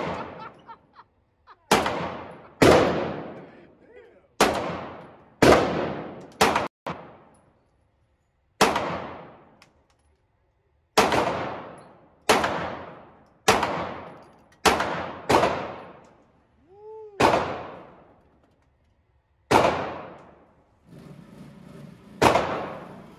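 Springfield Armory Hellcat Pro 9mm pistol fired in slow single shots, about fourteen of them one to two seconds apart. Each shot rings out and dies away in the echo of an indoor shooting range.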